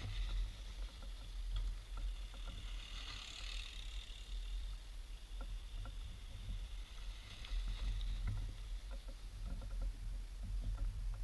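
Mountain bike ridden along a snowy trail: a steady low rumble of wind and riding on the microphone, with scattered clicks and rattles from the bike and its tyres on the snow.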